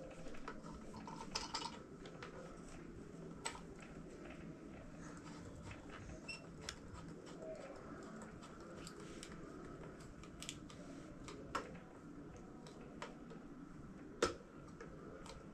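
Scattered light clicks and taps of the gift's parts being handled during assembly, with one sharper knock near the end, over a faint steady room background.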